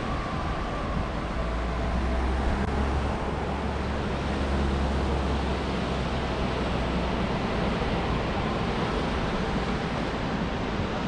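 Steady wind and surf noise, with wind rumbling on the action-camera microphone. The rumble is heaviest in the first few seconds, then eases.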